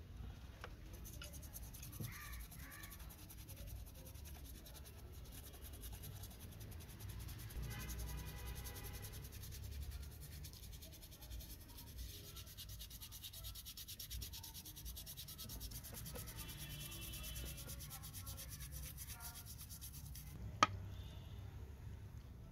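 Toothbrush scrubbing a rusted metal model car body in soapy water: fast, steady bristle rubbing that stops about two seconds before the end, followed by one sharp click.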